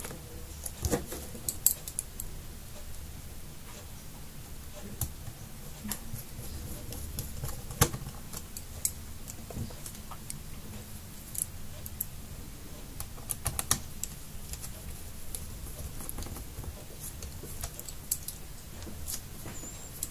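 Scattered, irregular light clicks and taps of small tools and parts being handled while a hard drive is fitted into an opened laptop, with a low steady hum beneath.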